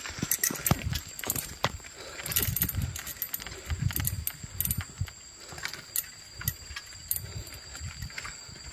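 Mountain bike rolling over a rough gravel trail: irregular rattles and clicks from the bike, with low rumbling bumps as it rides over the uneven surface.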